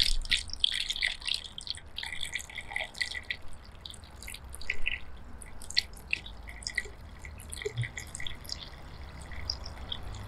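Thin stream of water poured from a metal kettle into an enamel bowl of fruit, splashing and trickling in quick, irregular drips that thin out over the pour.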